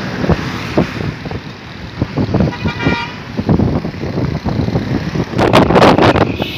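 Wind buffeting the microphone over the road and engine noise of a moving vehicle, with a short vehicle horn toot about two and a half seconds in. A loud gust of wind noise comes near the end.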